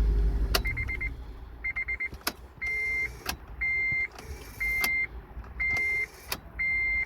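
Honda Element's ignition and dash electrics with the key turned: two short rapid buzzing chatters and a few clicks, then the warning chime beeping evenly about once a second. The owner puts the buzzing down to a failing ignition switch, which leaves the car starting only sometimes.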